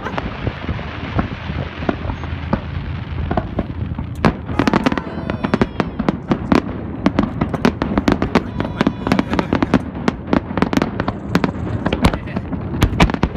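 Aerial fireworks shells bursting in quick succession, with sharp bangs and crackling over a continuous low rumble. The bangs come much thicker after about four seconds.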